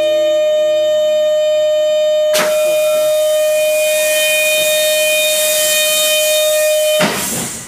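A loud, steady tone with overtones, held about seven seconds without any change in pitch and cut off abruptly. About a third of the way in, a sharp click brings in a hiss that runs under the tone.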